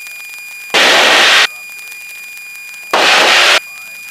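Cockpit audio of a light aircraft in its climb, carrying a steady high-pitched electrical whine. It is broken twice by loud bursts of static, each a little under a second long.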